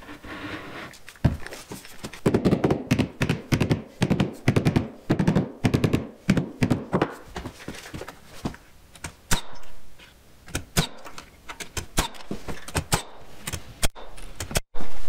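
Many quick knocks and thumps of wood on wood as a hardwood stair tread is worked down into place on the stair, closely packed in the first half and more scattered later.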